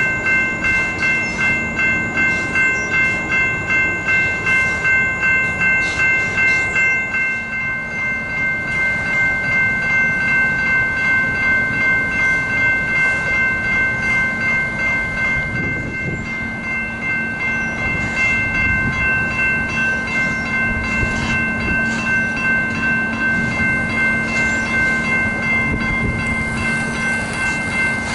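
Railroad crossing warning bell ringing steadily, about two strikes a second. The crossing is activated with no train present, a malfunction most likely due to flooding.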